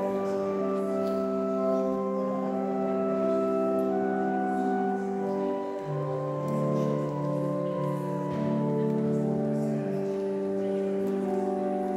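Pipe organ playing slow, sustained chords, with deeper bass notes joining for a few seconds about halfway through.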